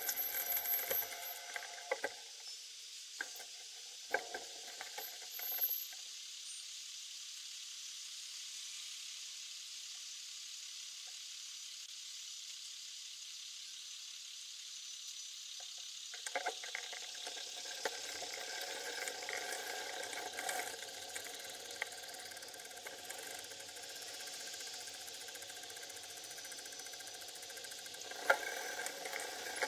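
Steady hiss of road and wind noise on a bike-mounted camera, with a few sharp clicks in the first seconds. From about halfway, the drone of vehicle engines in slow traffic joins in.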